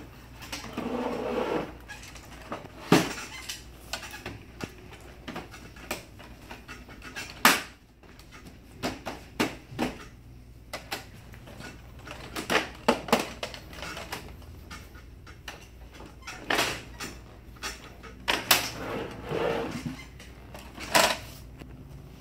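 Plastic cover panels of an HP laser printer being worked off and on by hand: a string of plastic clicks and knocks as tabs snap and panels bump, with short stretches of plastic rubbing. The loudest knocks come about 3 s in, about 7.5 s in, and again near the end.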